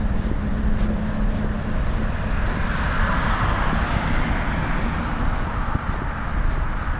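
Wind rumbling on the microphones over steady footsteps, with a car passing: its tyre noise swells about three seconds in and fades away.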